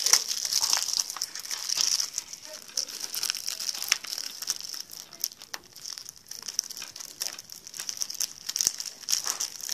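Plastic shrink-wrap crinkling and crackling as it is pulled off a DVD case, in irregular clusters of small crackles.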